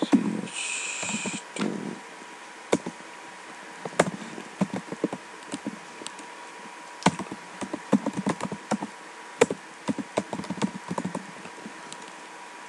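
Typing on a computer keyboard: irregular runs of key clicks over a faint steady tone, with a brief hiss about a second in.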